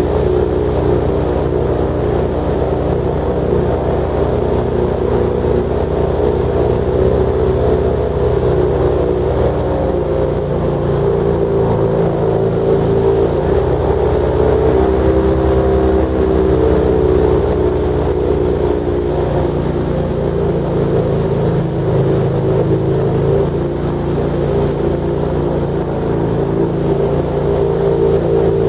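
Airboat's engine and air propeller running loud and steady, its pitch shifting a little now and then.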